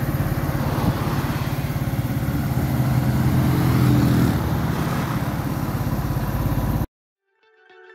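Motorcycle engine running steadily as the bike rides along the road, with rapid even firing pulses under road and wind noise. It cuts off abruptly about seven seconds in, and music fades in faintly near the end.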